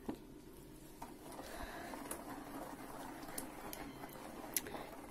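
Thick raw tomato-and-pepper adjika being stirred with a spoon in a stainless steel pot: faint wet squelching, with a few light clicks scattered through.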